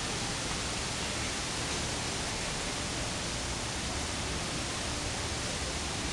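A steady, even hiss of background noise with no distinct sounds in it; the muntjac makes no bark.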